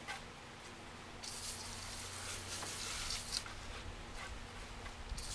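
Hands working soaked peat-based potting mix in a large ceramic pot: wet squishing and stirring, with a hiss that comes on about a second in, drops away a little past the middle and returns near the end.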